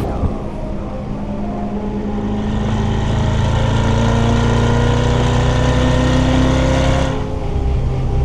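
Chevrolet Corvette C8's mid-mounted V8 accelerating, its note climbing steadily for several seconds, then dropping suddenly near the end.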